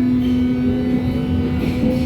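Berlin U-Bahn H01 train's electric traction drive whining on board, several tones rising steadily in pitch as the train gathers speed, over a steady hum and the rumble of the wheels on the track.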